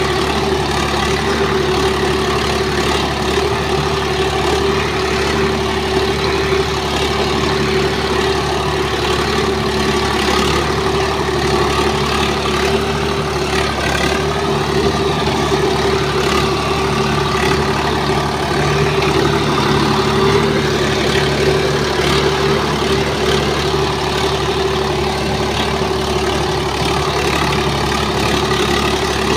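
Swaraj 742 FE tractor's three-cylinder diesel engine running steadily under load while driving a rotavator through the soil.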